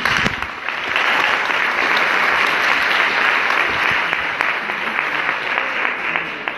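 Audience applauding, starting suddenly and fading away near the end.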